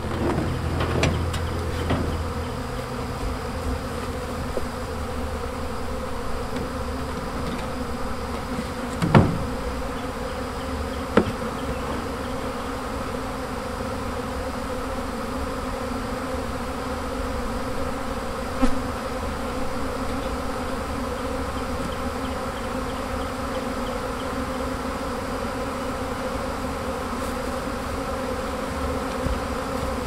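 A huge swarm of honey bees flying all around, a loud, steady buzzing of thousands of wings. The swarm has been knocked loose from its cluster. A few brief knocks come through the buzz, two of them close together in the middle.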